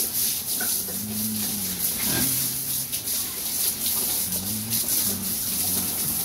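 Water from a hose spraying onto pigs and the wet concrete floor of their pen, a steady hiss, with the pigs grunting as they are bathed.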